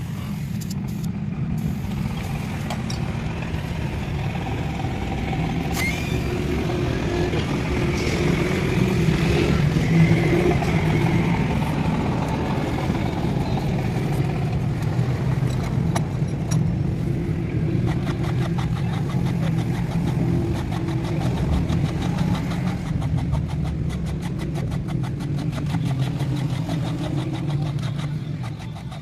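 A motor vehicle engine running steadily, a little louder about a third of the way in, with a fast even ticking high over it in the second half.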